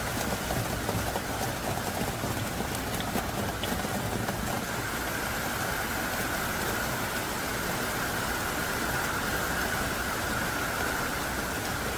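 Heavy, driving downpour: a steady, dense hiss of rain with faint scattered drop ticks.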